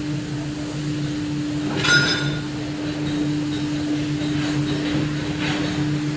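Plate rolling machine's electric drive running with a steady hum, with a brief higher-pitched metallic sound about two seconds in.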